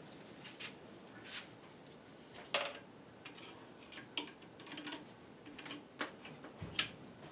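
Small metal parts clicking and clinking by hand as a just-lubricated component is put back together, in scattered irregular taps, the loudest about two and a half seconds in.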